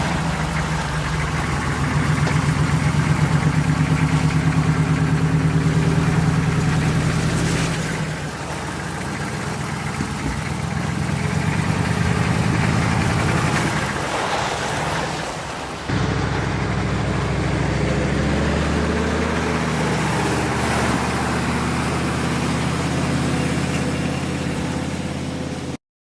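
A 1971 Toyota Land Cruiser's engine running with a steady, pitched note. Its level dips about eight seconds in and rises again, then about sixteen seconds in the sound changes suddenly to a lower, steady note.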